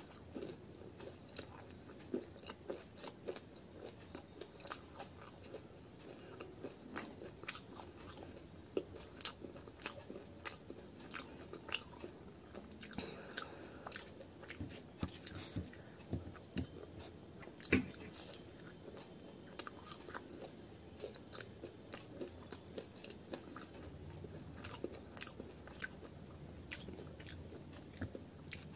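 Close-miked chewing and biting of deep-fried mooli kachori, with irregular crunchy clicks throughout. One crunch, about eighteen seconds in, is louder than the rest.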